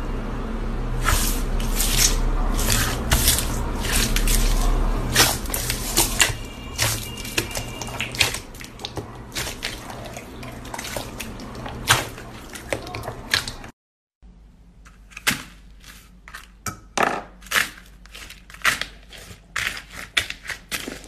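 Hands squishing, pressing and squeezing slime, with many short sticky pops and crackles. A low hum runs under the first part and stops at a cut about two-thirds of the way through. After the cut the pops come sharper against a quieter background.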